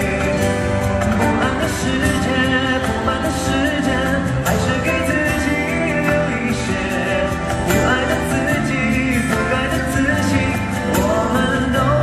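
A man singing a slow pop song live into a microphone over band accompaniment with drums.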